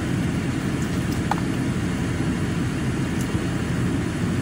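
Steady low rumble inside a car cabin from the car's running engine and ventilation.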